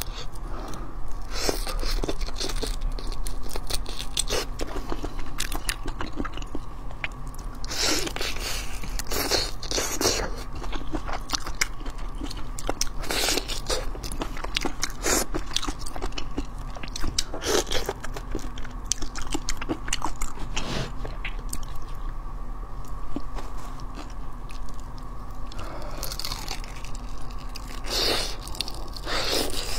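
Close-miked eating of whole shrimp in a chili marinade: wet biting, sucking and chewing, with crunching of the shells, coming in irregular clusters of clicks and smacks.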